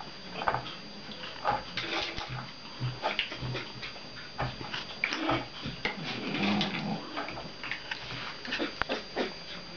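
Pomeranian-type puppy and adult dog by a food bowl on a tile floor: a run of short clicks and crunches, as from kibble and claws on tile, with a brief low dog sound about six and a half seconds in.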